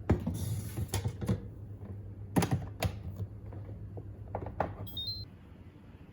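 Kitchen items being handled: a series of separate sharp clicks and knocks, with a brief high rising chirp about five seconds in. A low steady hum stops just after the chirp.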